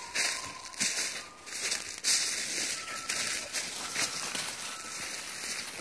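Footsteps crunching irregularly through dry leaves and pine straw, with brush rustling.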